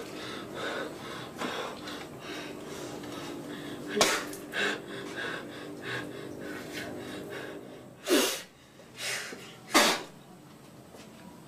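Low, continuous murmured chanting of an incantation, broken by a sharp breath burst about four seconds in and two hard, hissing blasts of breath about eight and ten seconds in.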